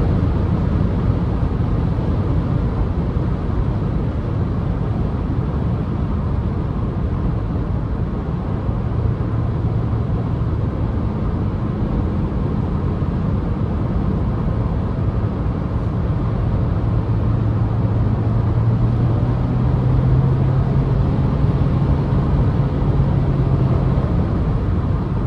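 Car engine with road and wind noise heard from inside the cabin at motorway speed while accelerating in power mode; the engine note climbs steadily through the second half, then drops away shortly before the end.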